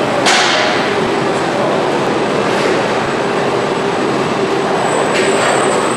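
Steady din of automated factory machinery in a robot assembly cell, with a short hiss about a quarter of a second in.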